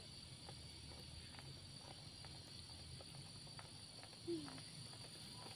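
Faint steady high-pitched drone of insects. About four seconds in there is one short, louder falling call.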